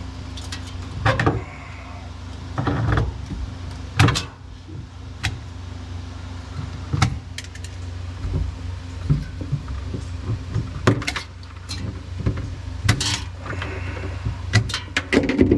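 Scattered sharp knocks, clanks and rattles of metal parts and tools being handled while a refrigerator is stripped for scrap, over a steady low hum.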